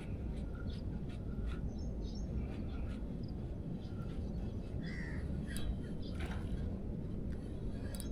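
Birds calling in short scattered calls, a crow-like caw among them, over a steady low rush of outdoor background noise.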